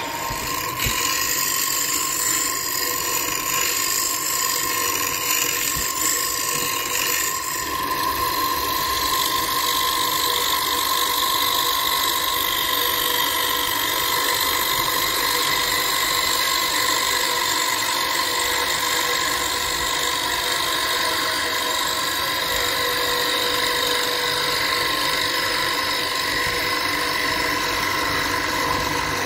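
Wood lathe running while a hand-held gouge cuts a spinning wooden bowl: a steady whine from the lathe under the hiss of the cut. The sound shifts about seven seconds in.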